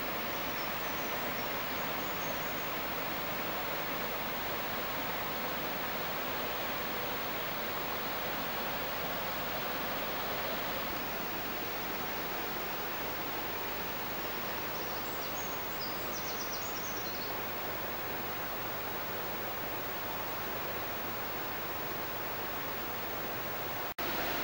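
Steady rushing noise of a fast-flowing river.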